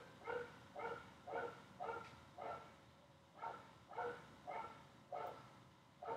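A dog barking repeatedly, about two barks a second, with a short pause near the middle.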